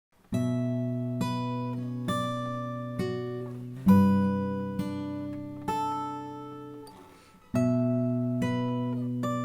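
Acoustic guitar playing the song's intro: chords struck about once a second, each left to ring and die away. The playing fades almost out about seven seconds in before the pattern starts again.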